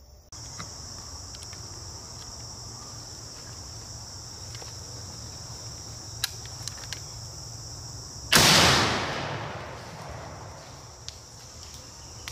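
A steady, high-pitched chorus of insects, then about eight seconds in a single shot from a black-powder muzzleloading shotgun: a sudden loud blast whose echo dies away over about two seconds.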